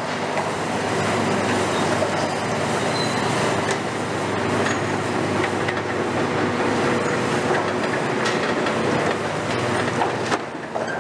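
Long-front demolition excavator (KMC 400, built on a Hitachi ZX350LCD-6) running steadily under load while its demolition attachment works the steel roof framework, with metal grinding and creaking and scattered sharp clicks.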